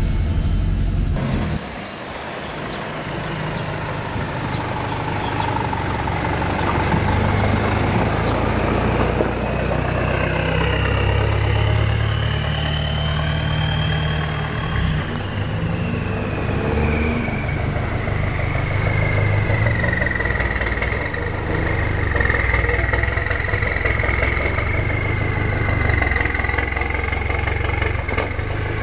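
Lifted Toyota Sport Rider on oversized off-road tyres driving, its engine running steadily with a high whine that rises and falls in pitch. The sound changes abruptly about a second and a half in.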